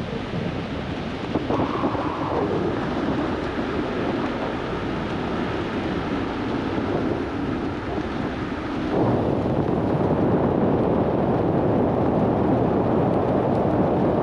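Steady rushing wind noise buffeting the microphone during a parachute canopy descent, getting louder about nine seconds in.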